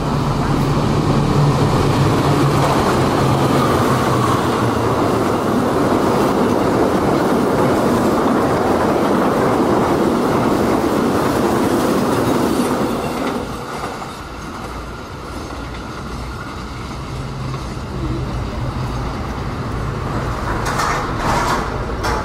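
Diesel-hauled passenger train passing at speed: the locomotive's engine drone, then the wheel and rail noise of the carriages going by. About 13 seconds in the sound drops suddenly to a quieter rumble as a train moves away.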